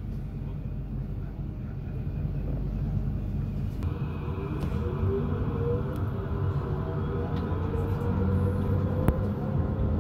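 Electric tram heard from inside: a low steady hum while it stands, then from about four seconds in the traction motors whine with slowly rising pitch as it pulls away and gathers speed. A few sharp clicks along the way.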